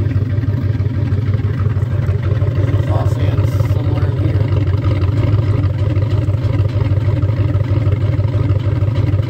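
Chevrolet 5.3-litre LS V8 idling steadily on a freshly installed BTR Truck Norris camshaft, with a little lope to it. The engine is still cold and not yet in closed loop, and it carries valve train noise from one side that is put down to rocker or lifter noise.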